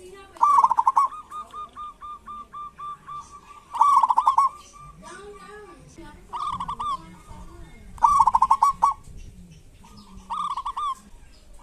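Zebra dove (perkutut) giving its rattling 'kerot' call: five fast trilled bursts about two seconds apart, with a string of short even notes after the first and soft low coos ('bekur') between the bursts.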